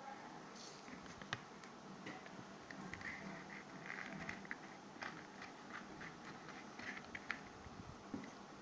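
Faint handling noise from a quilled paper organizer being turned by hand: light paper rustles and scattered small taps and clicks.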